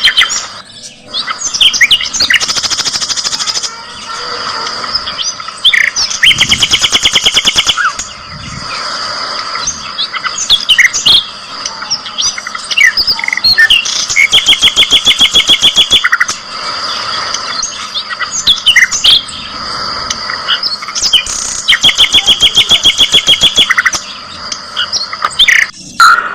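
Budgerigars chirping, with several runs of fast, evenly repeated notes lasting a second or two each, and a steady high tone underneath.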